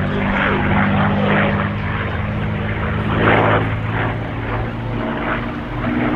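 P-51 Mustang's Packard Merlin V-12 engine and propeller running steadily as the fighter flies aerobatics overhead, the engine note rising near the end.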